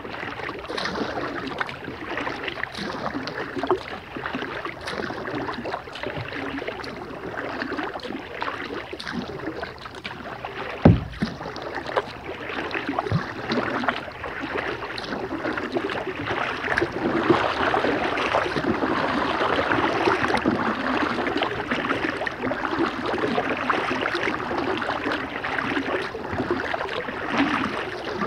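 Kayak paddling: paddle blades dipping and splashing in the water with steady drips and small clicks, and one sharp knock about eleven seconds in.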